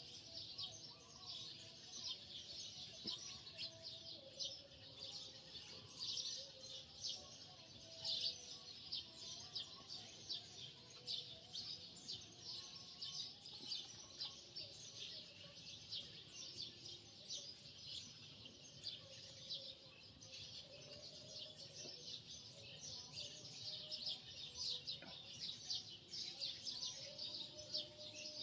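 Faint, dense chirping of many small birds, with rapid high chirps running on without a break.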